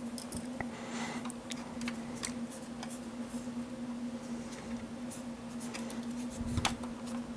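Cotton swab scrubbing a freshly soldered surface-mount transistor on a circuit board, cleaning the joint: faint scratchy rubbing and small ticks. A steady low hum runs underneath, with a dull low thump near the end.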